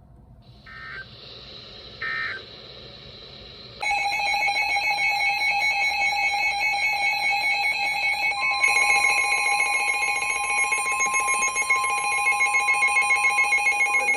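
Emergency Alert System header: three short bursts of warbling data tones over faint static, then a loud, harsh, steady alert tone from about four seconds in, with a second, higher tone joining about halfway through. It is the alert signal that opens a broadcast severe thunderstorm warning.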